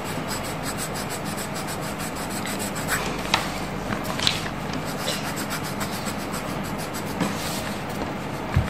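Colored pencil scribbling quickly back and forth on coloring-book paper: a steady, rapid rubbing. A few short sharp taps in the middle and a duller knock near the end.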